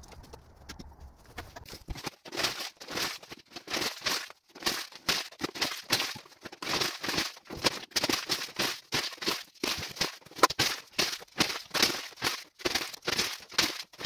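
Sheets of paper being crumpled and torn by hand, in quick rustling strokes about two to three a second, starting about two seconds in.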